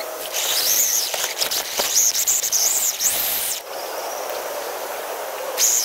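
Electric motor of a radio-controlled car whining high as it revs up and down in a few smooth arches, over a steady noisy rush of running gear.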